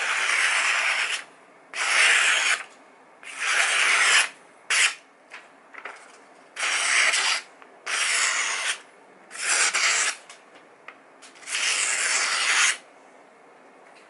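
Freshly sharpened kitchen knife slicing through a sheet of printed paper, a paper-cutting test of the edge. About seven hissing cuts of roughly a second each, with short pauses between.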